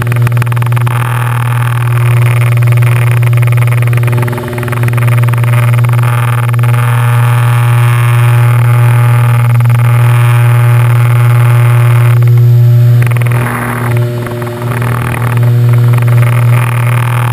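Steady drone of the Piper PA-31-350 Navajo Chieftain's twin turbocharged six-cylinder Lycoming piston engines and propellers, heard inside the cockpit and made rough by vibration of the camera mount. The loudness dips briefly twice, a few seconds in and again near the end.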